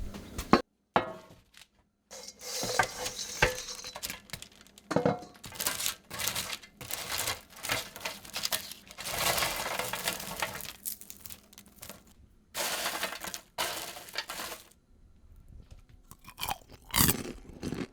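Caramel-coated popcorn crunching and crackling as it is handled, in irregular bursts with short pauses.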